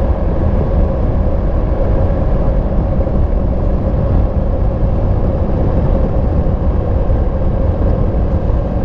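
2022 Yamaha MT-10 SP's crossplane inline-four engine running steadily through its stock exhaust, with no revving or change in pitch.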